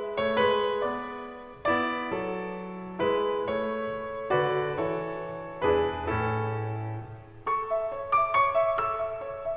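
Background piano music: slow chords, each struck and left to ring, with quicker notes near the end.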